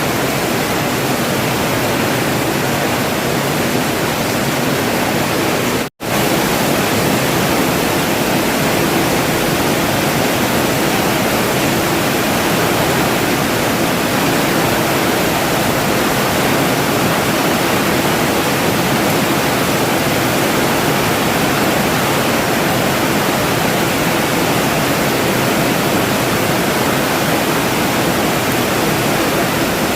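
Steady rain falling, a dense even hiss with no other sounds. It cuts out for an instant about six seconds in.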